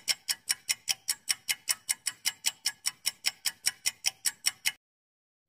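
Clock-ticking sound effect for a quiz answer timer: evenly spaced sharp ticks, about five a second, that stop a little before five seconds in.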